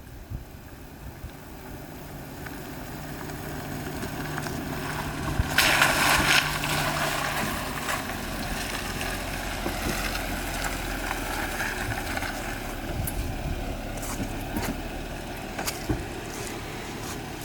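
Jeep Wrangler engine running under throttle as it drives through water, growing louder, with a loud rush of splashing water about six seconds in.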